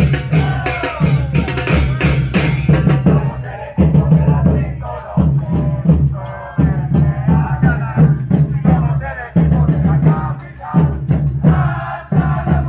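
A street band of brass and drums playing a tune, with a low bass line repeating about every second and a half.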